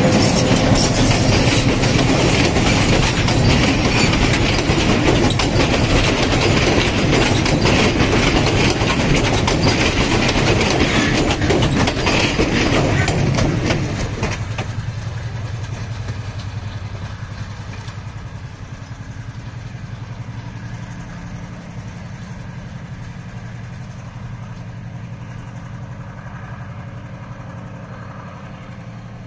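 Diesel-hauled passenger train pulling away, loud at close range for about the first fourteen seconds: engine running and wheels clattering over the rail joints. The sound then drops sharply and fades slowly as the train moves off into the distance.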